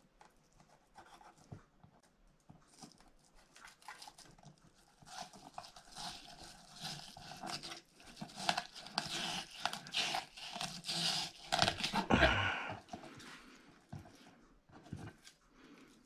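A kitchen knife scraping and sawing along a flathead fillet on a plastic cutting board as it is cut away from the skin. The strokes are irregular and rasping, busiest through the middle, with one heavier stroke about twelve seconds in.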